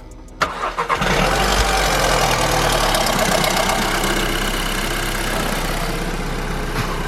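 Audi S3 engine cranking and catching about a second in, then settling into a steady, slightly falling idle. It has just been serviced with fresh oil and new spark plugs to cure a misfire, and sounds much better.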